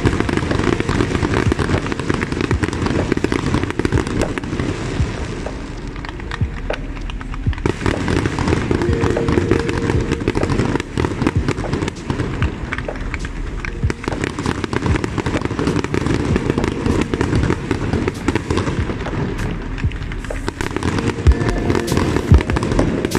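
Aerial fireworks display: a continuous barrage of bangs and crackling from shells bursting overhead, thinning briefly about six to eight seconds in before building again.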